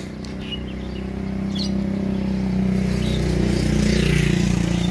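Motorcycle engine running as it approaches and passes close by, growing steadily louder to a peak near the end.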